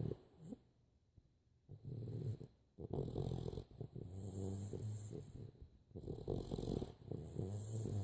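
Boxer dog snoring in slow, low, pitched breaths with a hiss on top, about three snores with short pauses between them. The loud snoring is typical of the breed's short muzzle.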